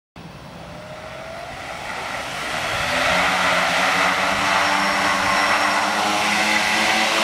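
A homemade quadcopter's four small electric motors and propellers spinning up. The sound cuts in abruptly, rises in pitch and loudness over about three seconds, then holds a steady, loud buzzing whine as the craft lifts off.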